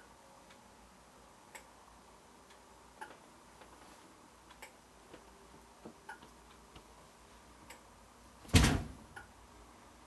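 Relay on the model tower's flasher circuit board clicking as it switches the red top beacon on and off, a faint click about every second and a half with lighter ticks between. A louder single thump comes near the end.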